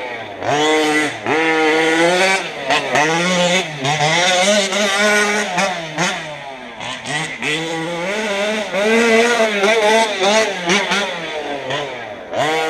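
Small 38cc engine of a modified model car running hard, its pitch rising and falling over and over as the throttle is blipped and eased, with short drops in revs near the start and near the end.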